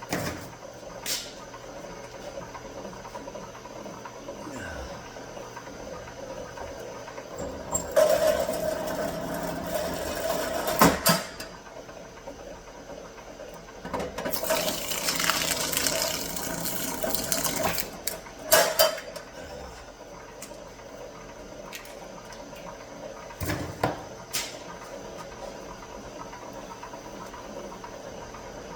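Copper wire being stripped: a steady low hum runs throughout, with two louder scraping stretches of a few seconds each and several sharp clicks.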